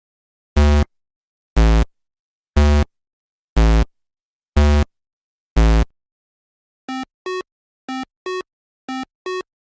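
Synthesized electronic beeps. First come six low, buzzy beeps about once a second. Then, about seven seconds in, a quieter, higher beep starts sounding in quick pairs, one pair each second, like a telephone's double ring.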